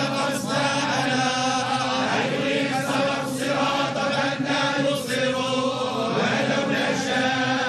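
Group of men chanting Islamic religious text together in unison, in long drawn-out lines.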